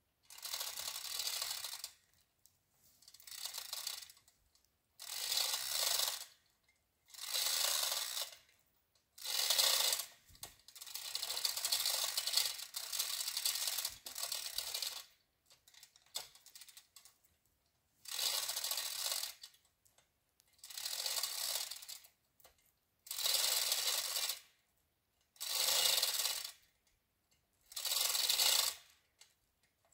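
Manual 2-ton chain fall ratcheting as its hand chain is pulled, its pawl clicking in spells of a second or two about every two and a half seconds, with one longer run of about five seconds near the middle. The hoist is taking up tension on a strap hooked high on a leaning maple.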